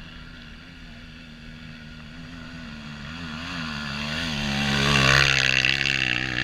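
Off-road trail motorcycle engine revving and drawing closer, its pitch wavering up and down with the throttle and its level rising steeply over the second half to a loud peak about five seconds in.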